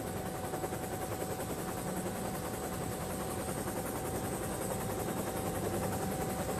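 A steady engine drone with a constant whine.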